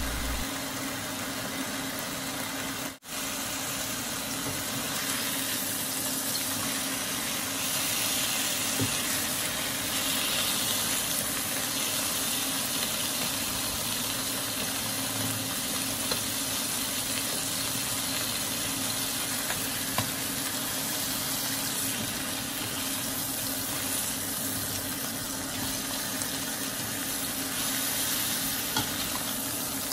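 Duck leg quarters searing skin-side down in a dry non-stick pan with no oil, a steady sizzle as fat renders out and the skin firms up. The sound cuts out briefly about three seconds in.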